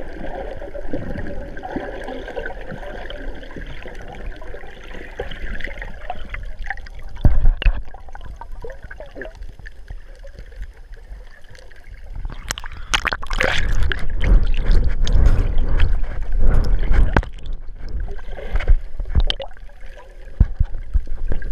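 Water sloshing and bubbling, heard muffled through a camera's waterproof housing while it is underwater, with a sharp knock about seven seconds in and a louder stretch of splashing and knocking in the second half.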